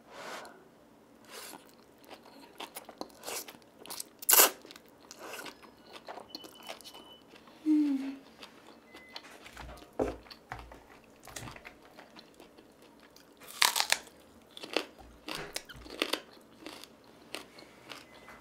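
Close-miked chewing of spicy stir-fried ramen noodles topped with seasoned bracken fern: irregular wet mouth clicks and smacks. Two are much louder, about four seconds in and again about three quarters of the way through.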